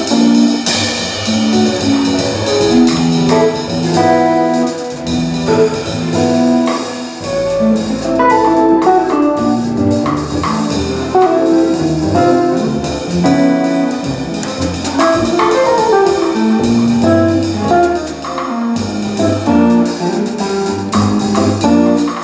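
Live jazz trio: a hollow-body archtop electric guitar plays a melodic line of many short notes over upright double bass and a drum kit with cymbals.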